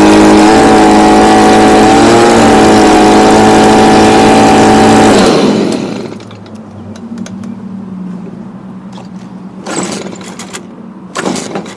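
Stihl BG55 two-stroke leaf blower, running on a newly fitted replacement carburetor, held at full throttle for about five seconds. The throttle is then released and the engine drops quickly to a steady idle.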